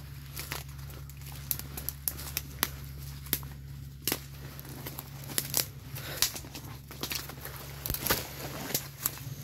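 Footsteps crunching through dry branches and leaves: irregular crackles and sharp twig cracks over a steady low hum.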